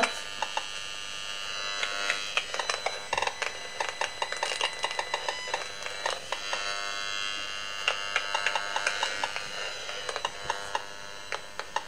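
Audio output of an EMFields Acousticom 2 RF detector (200 MHz–8 GHz): a steady electronic howl with irregular clicks running through it, coming in thicker patches, as the meter picks up a strong microwave signal and lights high on its scale. The owner takes the signal for a directed beam aimed at her.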